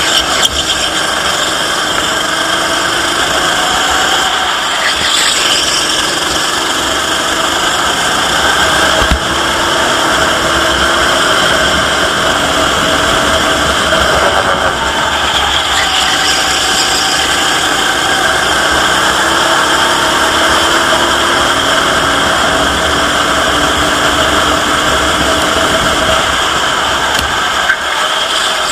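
Racing go-kart engine running flat out, heard from an onboard camera on the kart, with its pitch rising and falling as it revs through the corners. A steady rushing noise runs under it.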